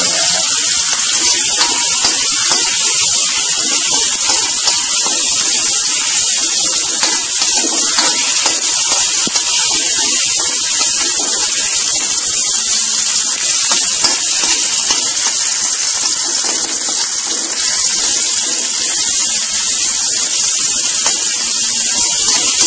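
Chopped chilies, tomato and garlic sizzling in hot oil in a wok: a steady hiss, with occasional scrapes of a metal spatula stirring the pan.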